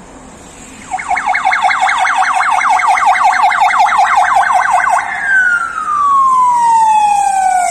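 Electronic siren of a blood-transport van on an emergency run: a fast yelp, about six or seven sweeps a second, starts about a second in, then changes at about five seconds into one long falling wail.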